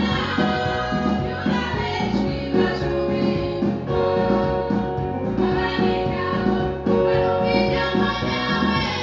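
Live worship music: a small group of singers at microphones singing a song together over amplified instrumental backing, with a steady beat of about two a second.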